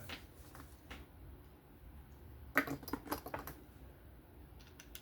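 A short run of small clicks and taps, bunched about two and a half to three and a half seconds in, from a folding knife and small tools being handled on a work surface.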